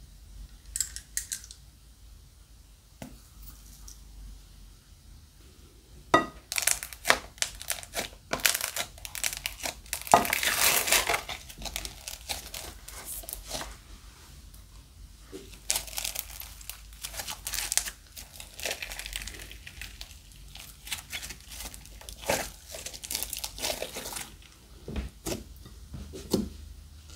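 Hands squishing, folding and stretching a thick bead-studded slime in a glass bowl, making bursts of sticky crackling and tearing sounds that start about six seconds in and come in waves.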